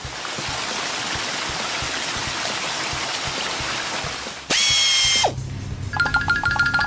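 Cartoon sound effect of water jets spraying, a steady hiss for about four and a half seconds. Then comes a short, loud, bright tone that drops quickly at its end. From about six seconds there is a fast, tinkling run of repeated high notes.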